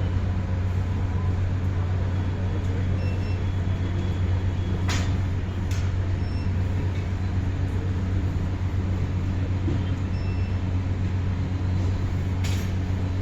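A steady low mechanical hum over a constant rushing noise, broken by short sharp clicks twice about five seconds in and once near the end.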